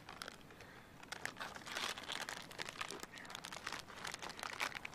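Foil sauce packet crinkling and rustling in the hands in irregular crackles as it is worked at and tugged to tear it open.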